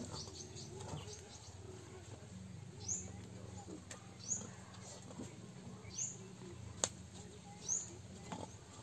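A bird chirping repeatedly, short high notes that fall in pitch, about one every second and a half. Two sharp clicks and a low steady hum sit beneath.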